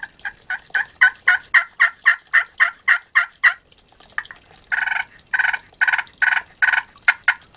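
Wet slate-surface pot turkey call played with a striker, making hen yelps: a run of quick, short yelps about three a second, then after a pause a few longer, raspier yelps, with quicker notes starting again near the end. The slate surface has just come out of water and still plays clean.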